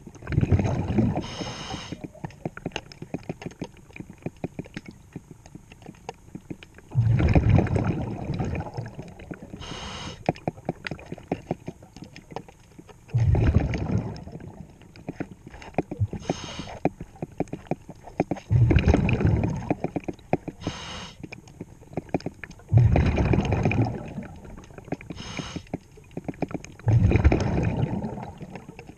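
Diver breathing through a regulator, heard underwater: six bubbling exhales, one every four to six seconds, each followed a few seconds later by a short hiss of inhaling.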